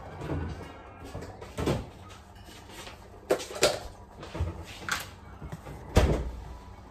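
A series of about seven sharp knocks and clunks of kitchen handling, like cupboard doors and containers being moved. The loudest comes about six seconds in, as a plastic tub of spread is brought to the stove.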